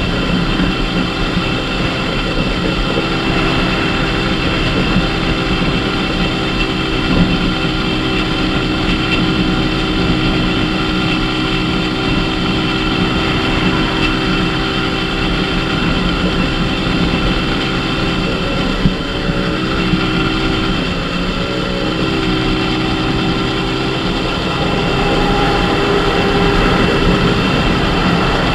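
Dafra Super 50cc motorcycle's small engine running steadily at cruising speed on the highway, with road noise. Its pitch wavers briefly about two-thirds of the way in. Near the end a truck passing alongside adds a louder, lower rumble.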